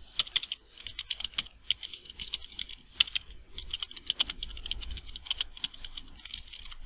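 Typing on a computer keyboard: a quick, steady run of keystroke clicks, with one sharper key strike about three seconds in.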